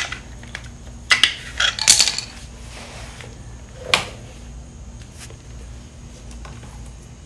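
Light metallic clinks and taps of small screws and hand tools being handled while fitting a screw-on engine case cover. There is a cluster of clinks between about one and two seconds in, and one more near four seconds.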